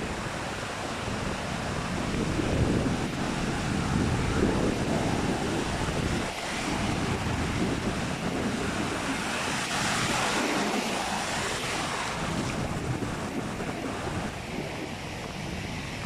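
Wind buffeting the microphone over the wash of ocean surf, rising and falling in gusts.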